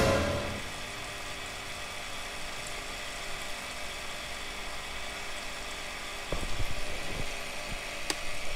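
Homemade siphon's 12 V mini water pump running with a steady hum as it draws water through the hose. Near the end come a few bumps, then a click as the switch on the pump box is pressed.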